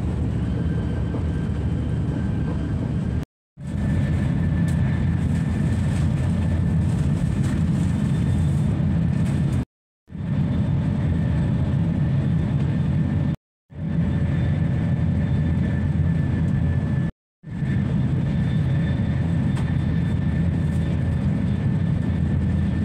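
Cabin noise of a double-deck TGV high-speed train running at speed: a steady low rumble and rush with a faint high whine. It drops out to silence abruptly four times for a moment, then returns.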